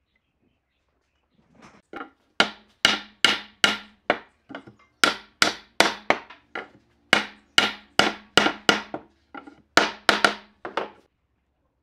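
Hammer blows on a pine board, driving it down onto nails set in the edge of the board below to close the edge joint. The sharp strikes come in bursts of four or five, about two to three a second, with lighter taps between, and stop about a second before the end.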